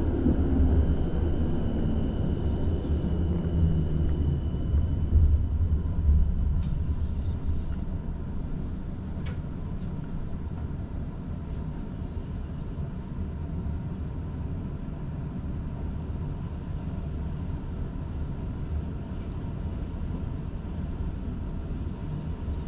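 City tram running on its rails, heard from inside the car: a low rumble, louder for the first several seconds, that eases off about eight seconds in and then stays steady. A thin high whine fades out in the first few seconds, and a few light clicks sound near the middle.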